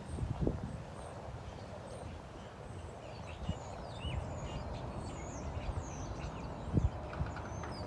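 Many small birds chirping and twittering over a steady low rumble, with a couple of brief low thumps.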